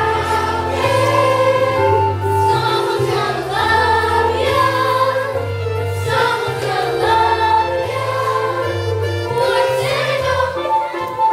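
Music: a choir singing held notes over an instrumental backing with a steady bass line.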